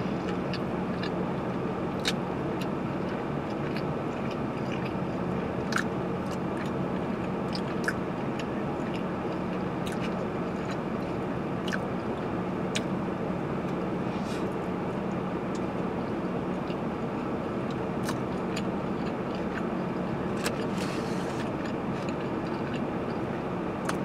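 Chewing a burger with soft, scattered mouth clicks every second or two, over the steady hum of a parked car's air conditioning fan blowing with the engine running.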